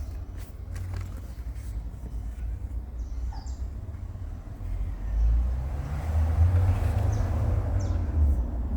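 A steady low outdoor rumble that swells louder for a few seconds in the second half, with a few short bird chirps above it.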